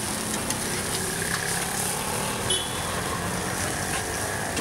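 Steady street noise: a motor vehicle's engine running under a constant hiss, with a few faint clicks.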